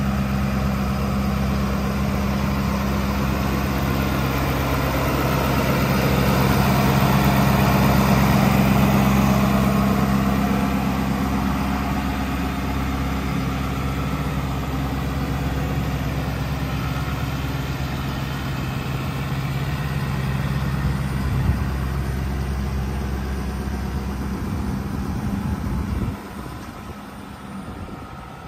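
2020 Ford F-350 Super Duty's engine idling steadily with the hood open. Near the end the low engine note drops away abruptly and the sound becomes much quieter.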